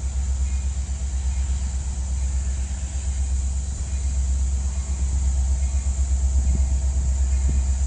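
Low, steady rumble of a Union Pacific diesel locomotive approaching at the head of a manifest freight train, growing slightly louder in the second half.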